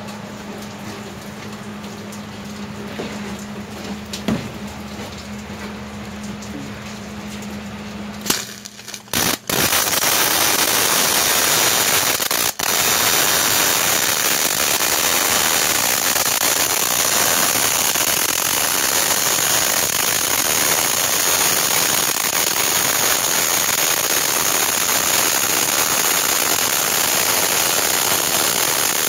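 Electric arc welding a bead on steel. A steady hum for the first eight seconds, then the arc strikes with a couple of short sputters about nine seconds in and settles into a continuous loud crackling sizzle, broken once briefly a few seconds later.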